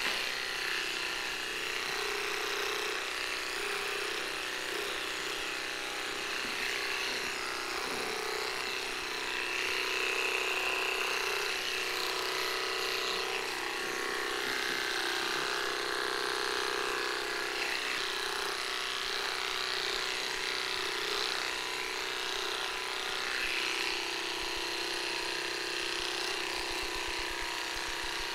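Electric pet clippers buzzing steadily as they trim a small dog's coat.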